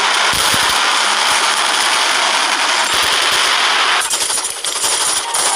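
Action-film bomb explosion sound effect: a heavy thump about a third of a second in, then a dense crackling rattle that drops away about four seconds in.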